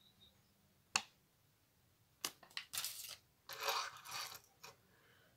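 Quiet handling noises: a click, then a few sharp taps and short scratchy rustles, as a paper leaflet is handled and a small plastic toy race car is set down and pushed along a wooden tabletop.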